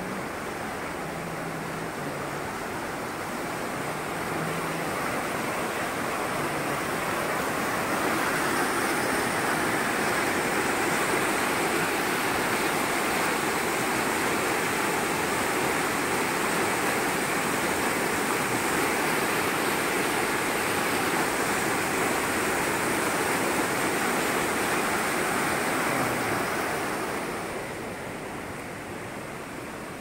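Swollen, muddy stream in flood, rushing water churning over its bed in a steady rush of noise. It grows louder a few seconds in and drops away near the end.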